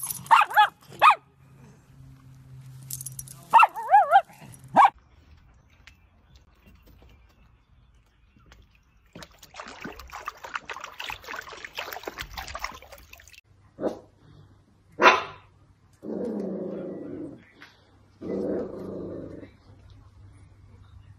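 Dachshunds vocalising: high-pitched yips and whines in the first few seconds, then two longer, lower barks near the end.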